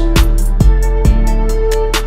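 Background music with a steady drum beat: deep kick hits about every half second under ticking cymbal strokes and held melodic notes.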